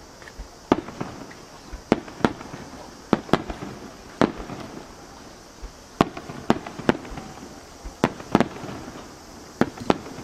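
Aerial firework shells bursting: a dozen or so sharp bangs at uneven spacing, some in quick pairs, each trailing off in a short echo.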